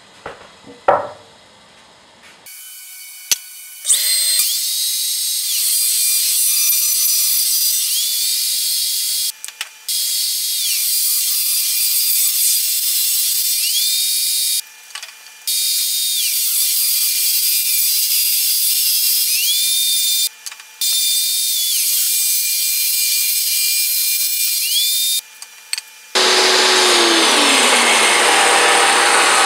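Table saw cutting thick hardwood boards: the blade runs with a steady high whine and hiss through several cuts separated by short breaks. Near the end comes a fuller, lower cut with a falling tone. In the first couple of seconds wooden boards knock together as they are handled.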